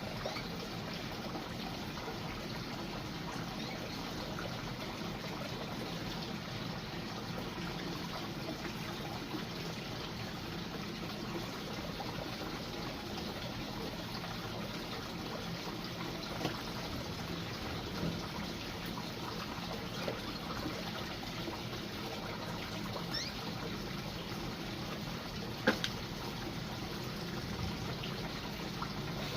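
Water trickling steadily, as from a small pond or fountain outflow. A sharp click comes a few seconds before the end.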